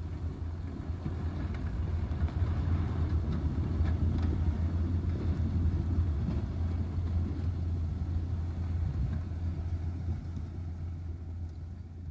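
John Deere tractor's diesel engine running under load as it clears snow, a steady low rumble that swells over the first few seconds and fades as the tractor moves away.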